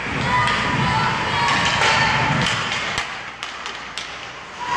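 Youth ice hockey in play: sticks and puck knocking and thudding on the ice and boards, with a few sharp knocks in the second half and children's voices around them.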